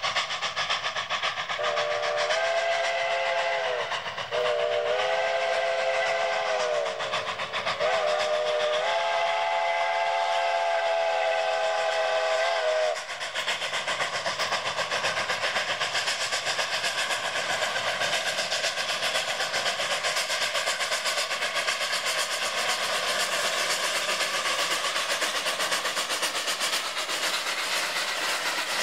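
Steam locomotive chime whistle on the narrow-gauge Rio Grande Mikados, blown in three blasts with the last the longest, sounding for a grade crossing. After the whistle stops, the two Mikados' exhaust goes on steadily as they work hard up the grade.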